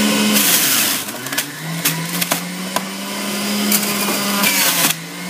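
Centrifugal juicer's motor running with a steady hum. About half a second in, a burst of shredding as cabbage is pushed down the feed chute; the motor's pitch dips under the load and climbs back over the next couple of seconds, with a few knocks from the chute, and another short burst of shredding near the end.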